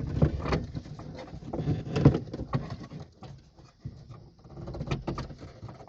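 Clicks, knocks and rustling of hands tugging a car radio antenna cable through the dashboard opening, with a few short low vocal sounds of effort about two seconds in.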